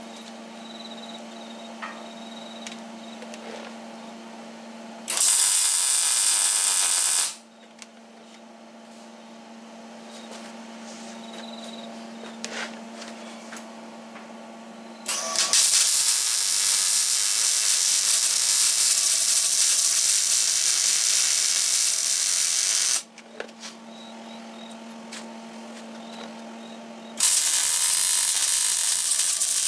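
Electric arc welding on a steel chassis frame rail: three runs of steady crackling hiss, a short one about five seconds in, a longer one of about eight seconds in the middle, and a third starting near the end. Between the runs a low steady hum remains.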